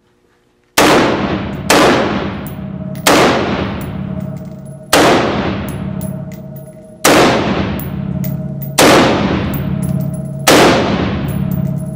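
Adcor B.E.A.R. Elite AR-15 rifle in .223 fired seven times, one deliberate shot every one to two seconds. Each shot rings out and fades slowly in the reverberant indoor range.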